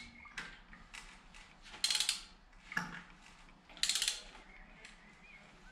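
Hand socket ratchet on the crankshaft pulley bolt of a BMW N52 inline-six, clicking in short runs about every two seconds as it is swung back between pulls while the engine is turned over by hand toward top dead centre.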